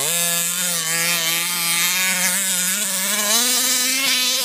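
Small two-stroke engine of a 1/5-scale gas RC buggy, a modified 30.5cc motor, running hard at high throttle, its pitch wavering and climbing somewhat about three seconds in.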